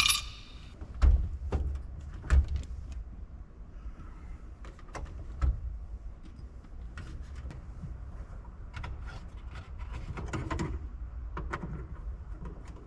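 Scattered knocks, clicks and light rattles of car interior parts being handled and pulled, the sharpest knocks about a second in, over a steady low rumble.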